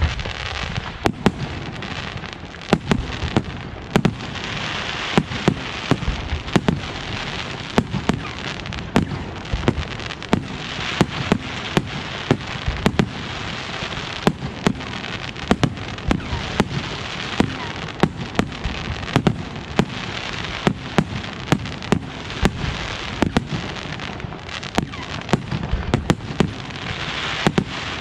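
Aerial fireworks display: a quick, uneven run of sharp bangs, several a second, over continuous crackling.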